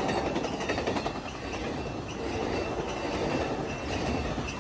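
Amtrak passenger train cars rolling past at speed: steel wheels clattering over the rails over a steady rumble. The tail of a horn blast fades out in the first moment.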